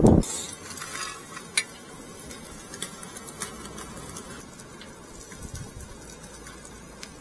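Meat and onion sizzling quietly on a wire-mesh barbecue grill, with a few sharp clicks of wooden chopsticks against the meat and the grill as the pieces are turned.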